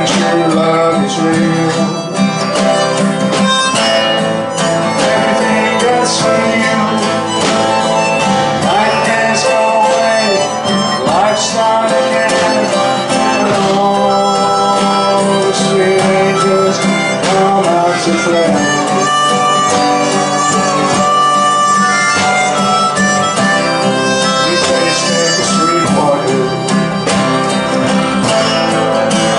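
Live blues band instrumental break: a harmonica solo with notes bending in pitch, over strummed acoustic guitar accompaniment.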